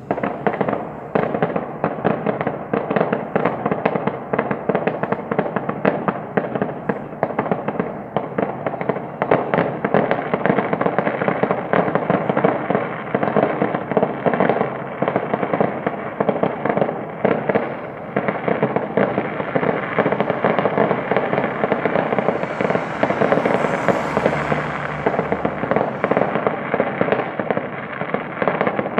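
A dense, unbroken barrage of fireworks and firecrackers going off, countless bangs and crackles overlapping without a pause. It starts suddenly.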